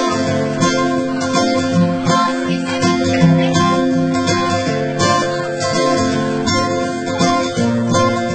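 Background music led by a strummed acoustic guitar, with a steady rhythm.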